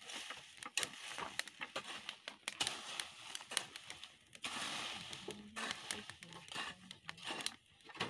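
Wood fire crackling in a metal brazier: irregular sharp pops and snaps over a steady hiss of the flames.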